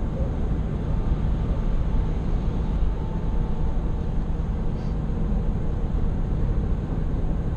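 Steady road and engine noise inside a vehicle's cab at highway speed.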